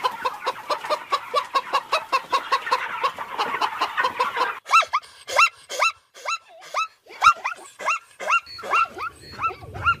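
A flock of hens clucking fast and evenly, about five calls a second. A little over four seconds in, this gives way to zebras' high barking calls, each rising and falling in pitch, about two a second.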